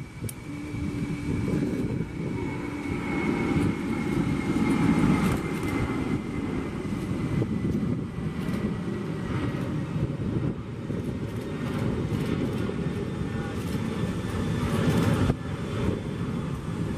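Boeing 747-400 freighter's four jet engines at takeoff power as it lifts off and climbs away, a loud, continuous deep rumble with a faint high whine that slowly falls in pitch.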